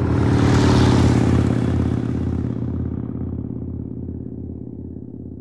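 Harley-Davidson V-twin motorcycle engine running with a low, pulsing beat of about three pulses a second. It is loudest about a second in, then fades steadily.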